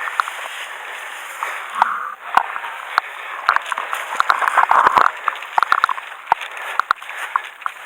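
Airsoft guns firing in a game: scattered sharp pops, with a quick dense run of shots about four to five seconds in, over steady noisy rustle.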